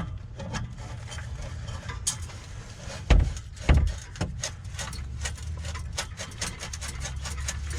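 Knocks and clanks of an exhaust pipe and clamp being fitted, with two heavier thumps about three seconds in, then a quick run of clicks as the clamp is tightened.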